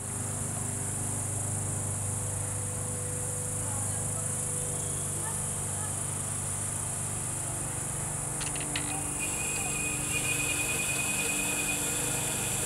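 The hydraulic system of a 1:16 scale model demolition excavator running, with a steady low hum and a high hiss. A few quick clicks about eight and a half seconds in, then a steady higher whine joins as the hydraulics take up load.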